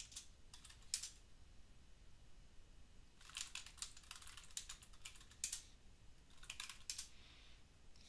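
Faint typing on a computer keyboard in short runs of keystrokes: a few keys near the start, a longer run in the middle and a short flurry near the end, with pauses between.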